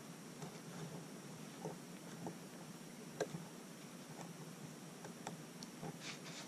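Faint, scattered small ticks and light scrapes of a hobby knife blade working the edge of a cut paint mask on a pinball playfield, with one sharper click about three seconds in and a short scratch near the end.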